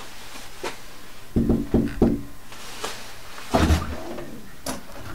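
Three quick knocks on a wooden door about a second and a half in, followed by a heavier thud a little later.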